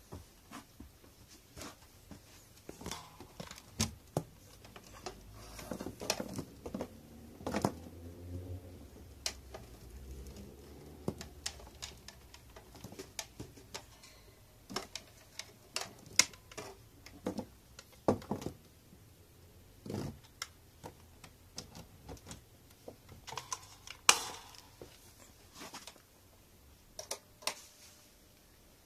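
Irregular light clicks and knocks of something being handled, with a sharper, louder knock near the end.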